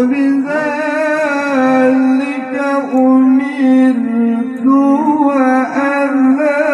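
A male qari reciting the Qur'an in the melodic tilawah style into a microphone, amplified through a PA system. He holds long, ornamented notes that waver and step in pitch, with only brief breaths between phrases.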